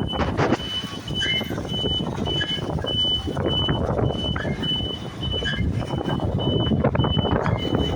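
Reversing alarm beeping steadily, nearly twice a second, over the rumble of heavy diesel machinery running.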